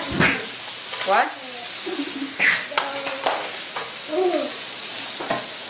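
Pork belly and shrimp sizzling steadily on a hot tabletop grill plate. Metal tongs click against the meat and plate several times as pieces are turned, with voices talking in the background.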